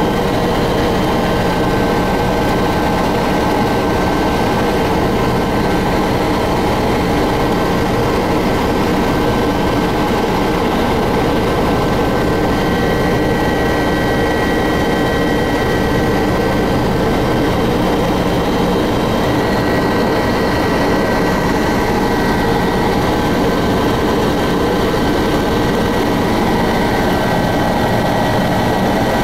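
Helicopter engine and rotor noise heard from inside the cabin in flight: a loud, steady drone with a thin, steady high whine over it.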